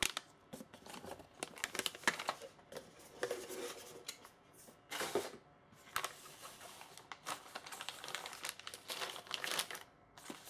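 Plastic packaging rustling and crackling in short, irregular bursts as small model-kit parts are handled.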